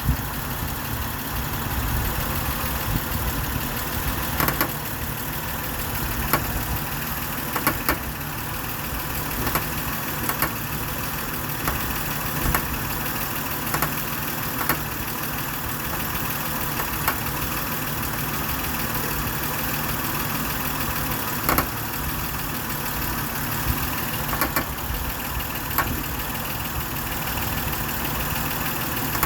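2007 Honda Odyssey's 3.5-litre V6 idling steadily, with sharp knocks or clicks coming irregularly, roughly every one to two seconds.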